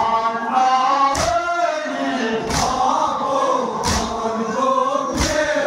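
A group of men chanting a Kashmiri noha (Shia mourning lament) together, with unison chest-beating (matam) striking in time: four sharp strikes, evenly spaced about a second and a half apart.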